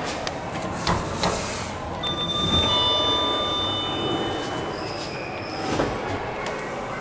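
2003 KONE Sigma lift arriving: a couple of clicks at the call button, then a two-note arrival chime, the second note lower, as the landing doors slide open with a low rumble. A knock comes near the end.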